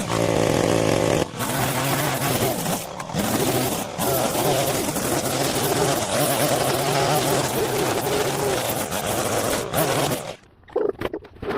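Small gasoline engine of outdoor power equipment running steadily, with a broad hiss over its hum. The sound breaks off abruptly several times and drops away shortly before the end.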